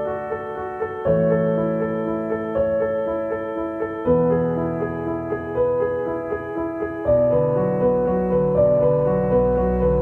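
Background keyboard music: sustained chords that change about every three seconds, under a short repeating figure of higher notes.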